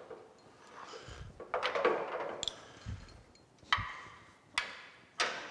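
Metal clanking and knocking as a heavy metal casting and its gear are worked into place by hand on a boring mill table. A rough scraping clatter comes about one and a half seconds in, followed by three sharp knocks.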